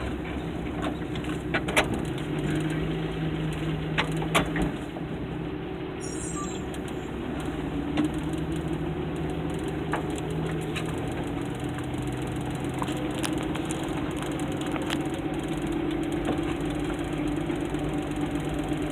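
Dodge A108 van's engine running as the van drives slowly, heard from inside the cab, its pitch rising a little partway through. A few sharp knocks come about two and four seconds in.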